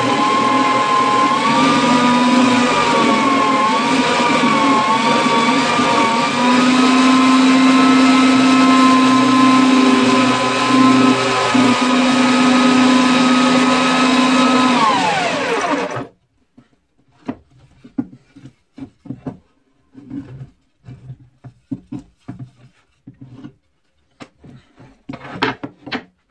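Electric power tool motor running with a steady whine that wavers in pitch as the load changes. Near the end the whine slides down as it is switched off, then the sound cuts off suddenly, leaving faint scattered taps and clicks.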